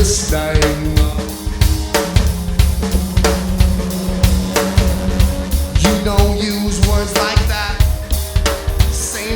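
Live band music: a drum kit playing a steady groove of kick and snare hits over held low notes, with other pitched instrument parts above.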